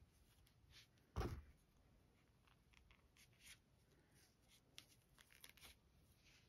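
Faint rustling and scratching of yarn and a crochet hook being handled, with one soft thump about a second in.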